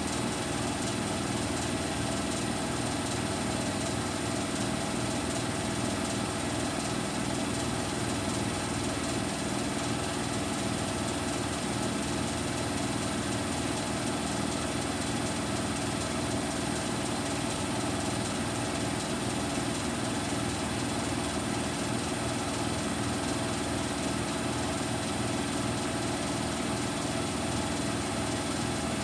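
Bosch Serie 6 front-loading washing machine running mid-cycle on its cotton 60° program: a steady machine hum at an even level, with no breaks.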